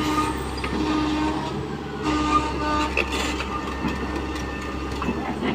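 Tata Hitachi 120H excavator's diesel engine running steadily, with a whine that comes and goes and a few light clanks.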